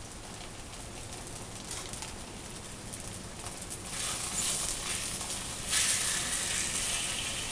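Sauce-coated corn tortillas sizzling in oil on a hot comal. The frying gets louder about four seconds in, as more chile sauce is spooned onto them, and again near six seconds.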